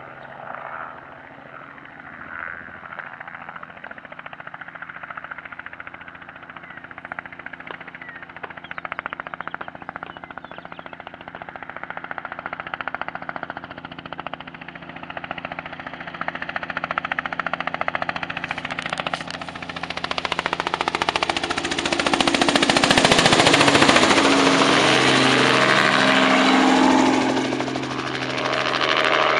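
Helicopter running with the fast, even chop of its rotor blades, growing much louder about two-thirds of the way through as it comes close, its engine tones bending in pitch as it goes by.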